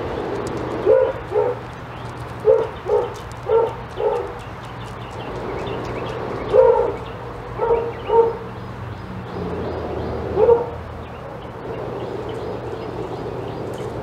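A dog barking: about ten short barks, mostly in pairs and threes, over a steady background rumble.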